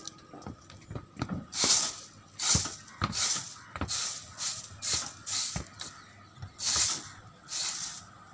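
Standing water being cleared from a roof surface: repeated short hissing swishes, about one a second, with a few light clicks between them.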